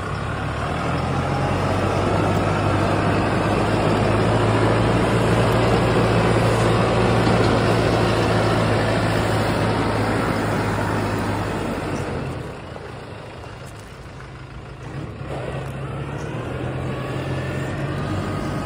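New Holland PowerStar 75 tractor's four-cylinder diesel engine running with a steady low hum. About twelve seconds in it drops away for a few seconds, then returns as the tractor moves off.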